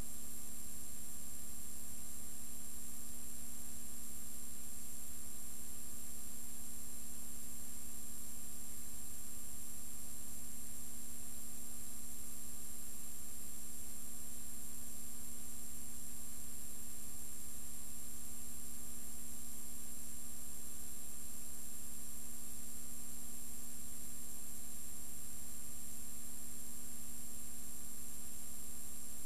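Steady electrical hum and hiss with no other sound: the empty sound track of a silent film transfer.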